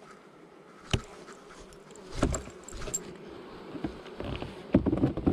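Honey bees buzzing in a steady drone close around the microphone. There is one sharp knock about a second in, and bursts of knocking and rustling from the hive equipment being handled.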